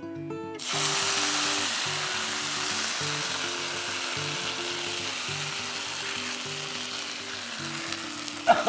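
A sudden loud sizzle about half a second in as tomato kanji is poured into a hot oil tempering of mustard seeds, fenugreek, dried chillies, curry leaves and crushed garlic. It settles into a steady sizzle that slowly eases off, with background music.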